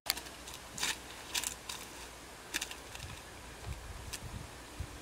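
Footsteps crunching on dry crop stubble and dead leaves: a few sharp, irregular crackles over a faint low rumble.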